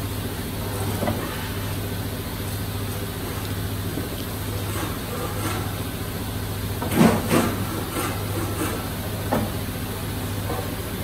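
A steady low hum of shop machinery, with two or three short knocks about seven seconds in and one more a couple of seconds later.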